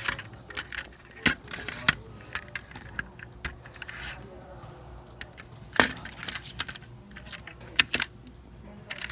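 Handling noise from a small diecast model fire engine: irregular sharp clicks and light rattles of its metal and plastic parts as the ladder is moved and the truck is turned over in the hand, with a few louder clicks among them.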